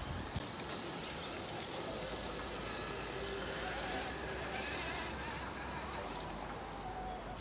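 Traxxas TRX-4 RC crawler trucks driving over dry leaves and dirt: a faint wavering whine from their electric motors and gears over a steady hiss of crunching leaves and outdoor air. There are two sharp clicks right at the start.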